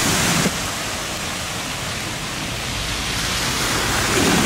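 Steady rushing hiss of rain and floodwater, a little louder for the first half second and then dropping abruptly to an even level.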